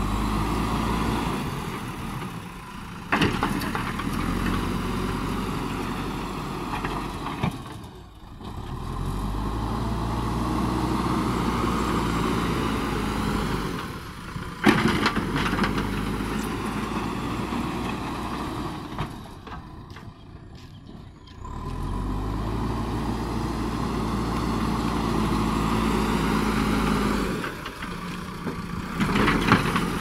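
JCB backhoe loader's diesel engine working under load as the front loader bucket pushes soil, running up and dropping back several times. Two sharp knocks, about three seconds in and again halfway through.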